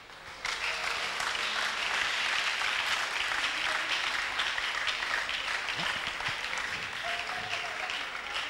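A congregation applauding: many people clapping hands together, the applause starting about half a second in and holding steady.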